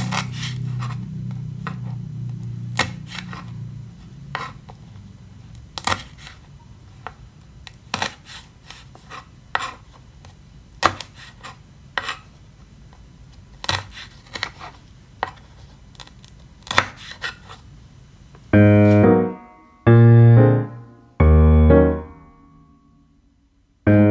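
Knife cutting food against a cutting board: single sharp cuts at an irregular pace, roughly one a second. Near the end, loud background music enters with three long notes.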